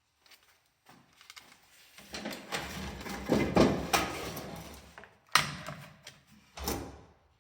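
Hand-work on small parts: rustling, rattling and light knocks, with two sharp clicks near the end.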